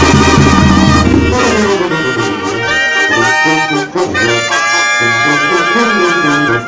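Banda sinaloense playing live: trumpets, clarinets and trombones. About a second in, the low bass and beat drop out, and the clarinets and trombones carry the melody on their own.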